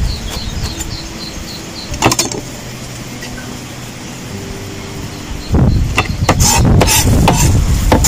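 Kitchen knife chopping herbs on a wooden cutting board in quick, even strokes that stop about a second in. A single sharp knock comes about two seconds in, and from about five and a half seconds in there is louder clatter and rustling of handling on the board, over a low steady hum.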